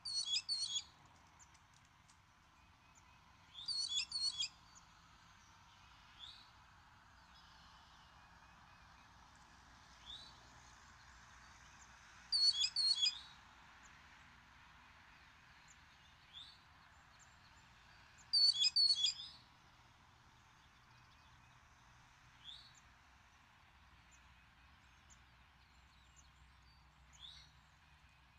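A songbird singing four short songs, each about a second of quick high notes, spaced several seconds apart. Between the songs a second bird gives faint single high call notes.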